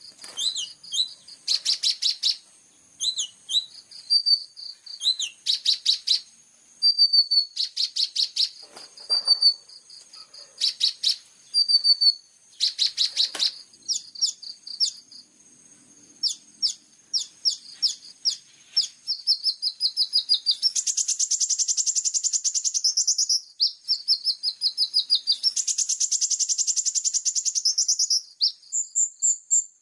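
High-pitched songbird chirps and rapid trills in short separate phrases, then two long continuous trills of a few seconds each in the second half.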